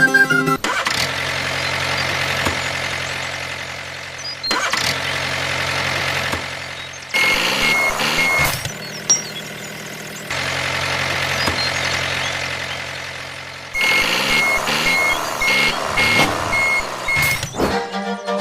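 Heavy construction-vehicle engine running steadily, in segments that cut in and out abruptly. Twice a regular high reversing beep sounds over it, a few beeps each time.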